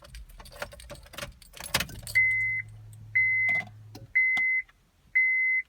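Light clicks and a key rattle, then a steady high electronic beep about once a second, four times, each lasting about half a second: the car's warning chime sounding with the key turned in the ignition of the 2002 Honda Civic.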